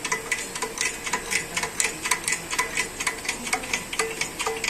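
Manual hydraulic shop press being worked to push a wheel bearing into a steering knuckle: a fast train of light clicks, about five a second.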